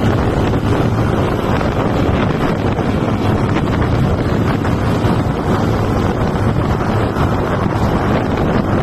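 Steady, loud rush of wind buffeting the microphone.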